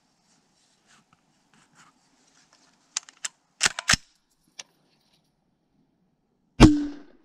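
A few sharp clicks and clacks about three to four seconds in, then near the end a single loud shot with a deep thump: an AR-15 fitted with a can cannon firing a blank cartridge to launch a can or other item.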